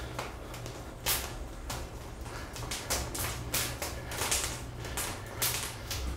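Fast repetitions of an explosive one-arm chest press against a door-anchored resistance band: a quick sharp hissing swish with each push, coming faster, about two or three a second, before stopping near the end, over a steady low hum.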